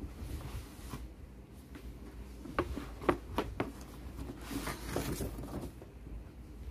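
A stiff paper gift bag rustling and crinkling as a box is pulled out of it, with a few light taps in the middle and a longer rustle a little later.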